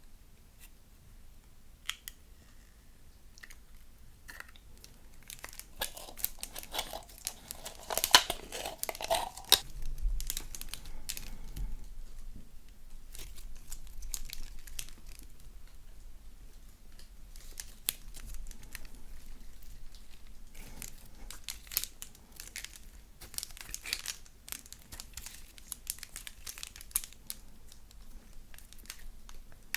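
Slime being squeezed and stretched by hand, giving a run of sticky crackles and pops. They come in clusters, heaviest about a fifth of the way in and again past two-thirds.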